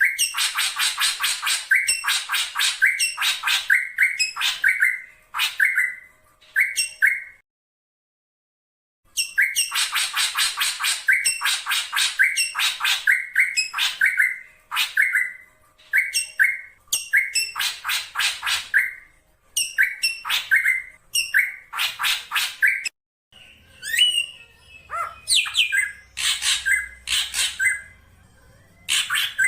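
Black drongo calling: quick series of harsh, rasping notes, each run ending in a clearer note, repeated with short pauses. Past the middle the calls grow sparser and more varied over a faint low hum.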